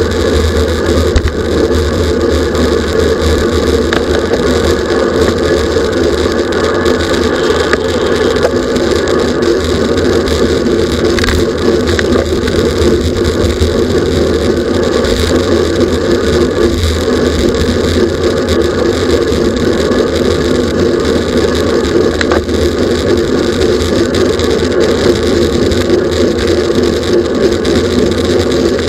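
Road bicycle riding at racing speed, heard from a camera mounted on the bike: a loud, steady rushing hum of wind over the microphone and the drivetrain.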